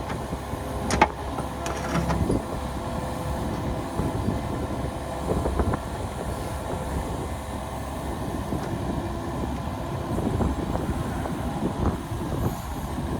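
Kubota KX71 mini excavator's diesel engine running under load with hydraulic work, and a few sharp metallic knocks as it works the old concrete flagpole footer.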